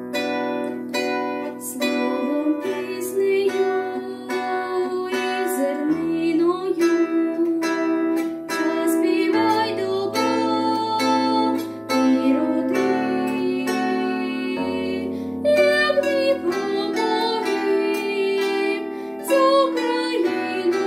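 A girl singing a Ukrainian song to her own bandura accompaniment: plucked strings with low bass notes, her voice coming in about two seconds in.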